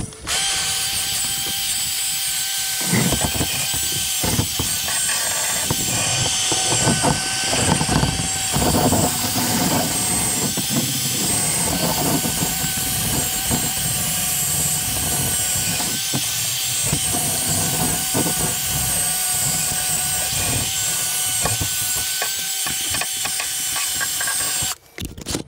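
Makita 18 V cordless drill spinning a wire cup brush against the steel suspension arm, scrubbing off surface rust: a steady motor whine over uneven scraping of wire on metal. It stops just before the end.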